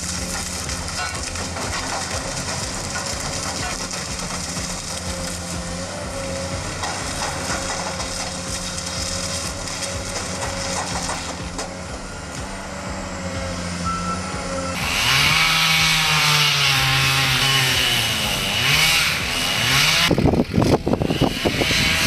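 A motor running steadily at a low, even pitch. About 15 seconds in it gives way abruptly to a louder motor revving up and down, and the last two seconds hold a run of sharp cracks and knocks.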